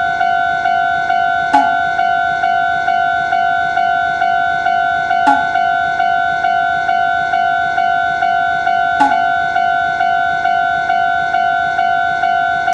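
Japanese level-crossing warning bell, ringing steadily in an even clang about twice a second. A short click cuts through three times, evenly spaced.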